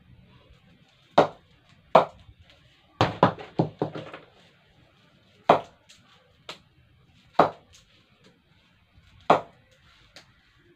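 Sharp wooden knocks off the blade of a Mongoose MSD-shape leather cricket bat as it is tested for its ping. Single knocks come one to two seconds apart, with a quick run of four about three seconds in.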